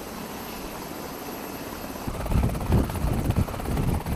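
Navy MH-60R Seahawk twin-turboshaft helicopter running on the ground with its rotor turning. It comes in loud and low with an uneven pulsing about halfway through, after a quieter steady hiss.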